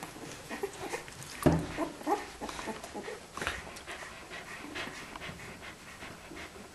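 Australian Kelpie bitch panting with her mouth open, in soft regular breaths. About a second and a half in there is a loud thump, followed by a couple of short whimpering squeaks.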